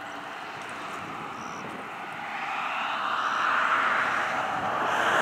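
A vehicle passing on the highway: its tyre and road noise swells from about two seconds in and is loudest near the end, over a steady background rush.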